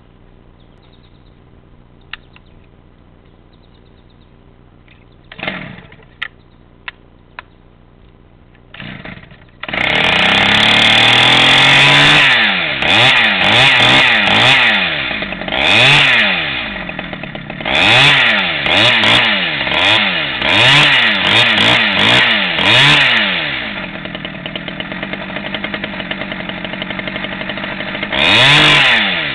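Stihl 011 AVT two-stroke chainsaw starting about ten seconds in, after two short bursts. It is then revved up and down again and again before settling to idle, with one more rev near the end.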